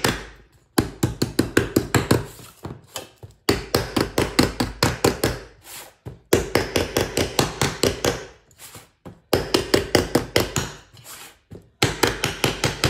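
Small hammer rapidly striking the stamped steel frame of a speaker, bending it inward. The strikes come in five quick runs, about four to five a second, with short pauses between.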